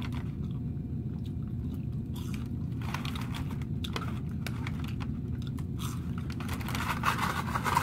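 Close-up chewing and crunching of a crispy battered fish sandwich, in irregular bites with busier crunching twice, over a steady low hum.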